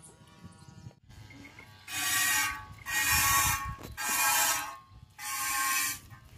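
Milk squirting by hand from a goat's teat into a steel pot: four hissing spurts about a second apart, starting about two seconds in, with a fifth beginning near the end.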